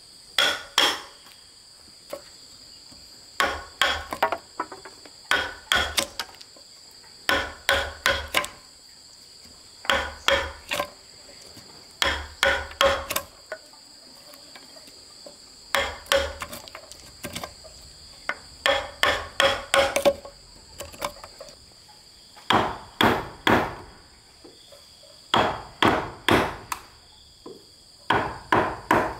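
Hammer driving a wood chisel into a log to cut a mortise: quick runs of three to five sharp strikes with short pauses between them. A steady high-pitched drone of insects goes on underneath.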